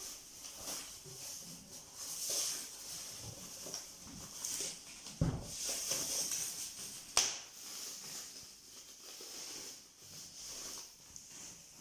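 Packaging being handled and rustled during unboxing, with a dull thump about five seconds in and a sharp click a couple of seconds later.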